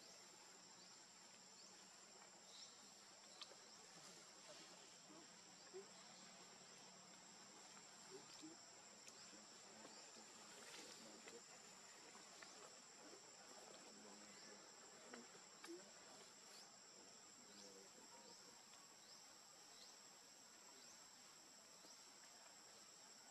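Faint, steady high-pitched insect chorus holding two even tones, with a few faint scattered clicks.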